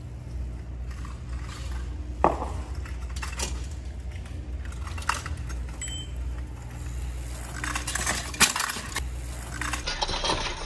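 A three-speed city share bike rattling and clinking as it rolls through a steep concrete skate bowl, with two sharp knocks, one about two seconds in and one late on.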